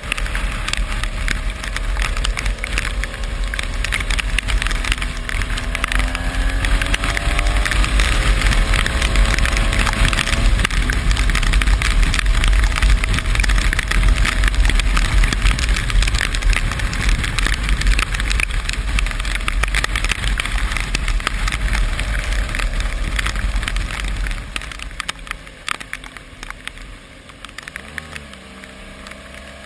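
Wind and rain noise buffeting the microphone while riding in the rain, with a vehicle's engine note underneath that rises in pitch a few times. The low rumble drops away about 24 seconds in, leaving a quieter engine hum.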